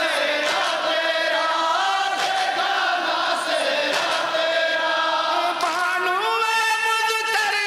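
A group of men chanting a farewell noha (Shia mourning lament) together into a microphone, long held notes sliding between pitches.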